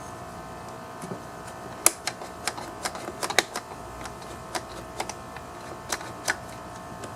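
Irregular clicks and light knocks of small chainsaw parts being handled and fitted together by hand, the sharpest about two seconds in and again near three and a half seconds.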